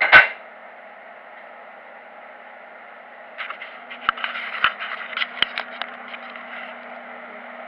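A length of steel angle iron set down on a steel workbench with one sharp metal clang at the start. About three seconds later comes a run of irregular clicks and knocks as the camera is handled, and a low steady hum starts up, all over a steady background hiss.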